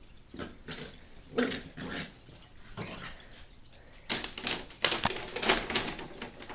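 Boxer puppy giving a few short yips as it plays. About four seconds in comes a loud two-second run of crackly rustling and scratching as it noses into a fabric cube.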